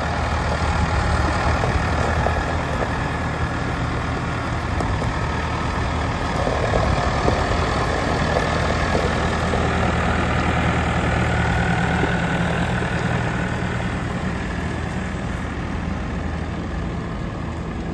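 Massey Ferguson 4345 tractor's four-cylinder diesel engine running steadily at low speed as the tractor drives slowly over gravel, a little louder about halfway through as it comes closest and easing off near the end.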